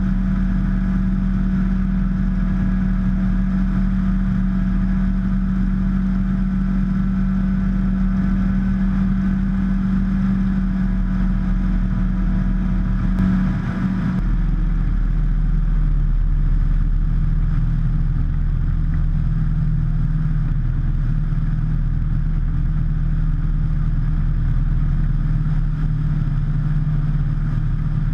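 Rotax 912UL four-cylinder four-stroke engine and propeller of a Drifter ultralight droning steadily in flight. About halfway through, the drone dips briefly and then settles at a slightly lower pitch.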